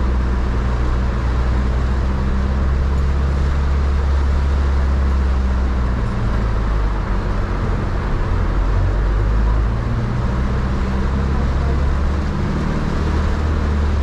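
Inside a Toyota van driving through heavy rain: a steady low engine and road drone under a dense hiss of rain on the roof and windscreen. The engine note shifts about halfway through.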